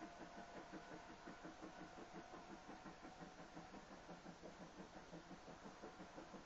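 Steam tank locomotive working hard, its exhaust chuffing in a steady rhythm of about four to five beats a second, faint with distance.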